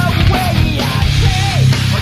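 Music mixed as 8D audio for headphones: a band-style track with a strong, sustained bass and a gliding melody line above it.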